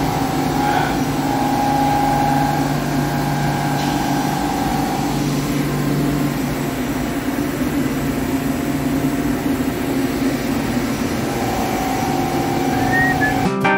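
Hankook PROTEC-9NC CNC lathe running with its spindle turning a long stainless steel roll: a steady machine hum with a fainter, higher whine.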